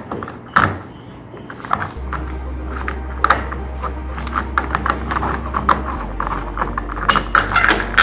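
Small metal clicks and clinks as an old door lock's loosened inside rose plate and long mounting screw rattle and are pulled out of the door. Background music with a low steady bass comes in about two seconds in.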